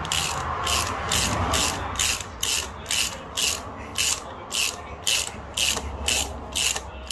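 Socket ratchet wrench clicking in short, even runs about twice a second, each run a stroke of the handle, as a bolt wrapped in PTFE tape is screwed in.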